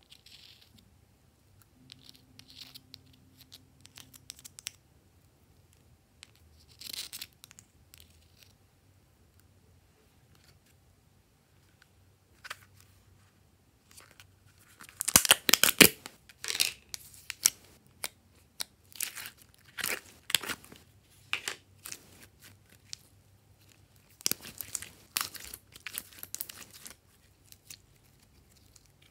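Faint scraping and clicks of a small metal spatula working in a small plastic tub. About halfway in, a loud crinkling tear as the plastic seal of a heart-shaped slime container is pulled open, followed by clusters of sticky crackles and clicks as glossy gold slime is pulled out and stretched.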